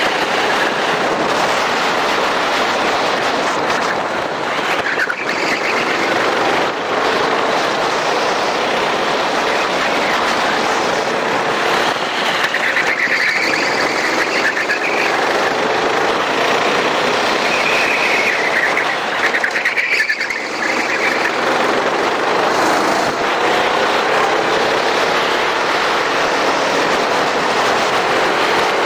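Racing kart engine running at race pace, its pitch climbing on acceleration and dropping back again several times, with no let-up in the noise.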